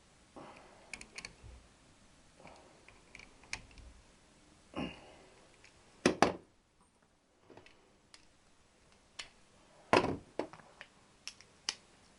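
Metal hand tools clicking and clinking: a ring spanner working the connecting-rod cap nuts on a Triumph crankshaft, with two louder clanks of tools set down or picked up about six and ten seconds in.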